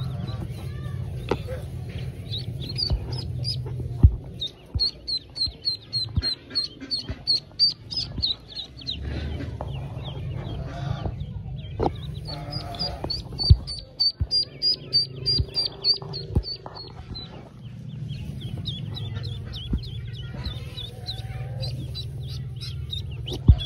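Newly hatched duckling peeping in runs of short, high, repeated peeps, about four a second, with pauses between the runs. Straw rustles under a hand searching the nest.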